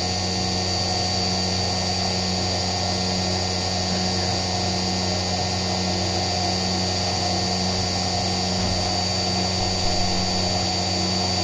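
CNC milling machine cutting a metal motorcycle clutch cover with an end mill under flood coolant. A steady high whine and cutting noise run over a low machine hum, with coolant spraying on the part.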